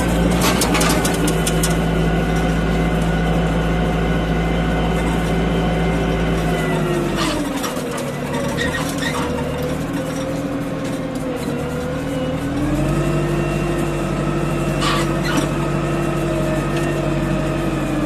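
Deutz-Fahr Agroplus 90 F tractor engine running while the tractor drives along. The revs drop about seven seconds in and pick up again about thirteen seconds in, with a few short knocks and rattles along the way.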